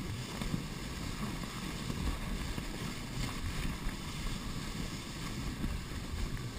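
Canoe hull sliding over packed snow, a steady rough rumble, with wind on the microphone.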